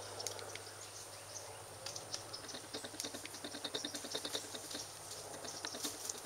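Outdoor ambience: small birds chirping and ticking in quick short calls, more of them after about two seconds, over a steady high insect drone.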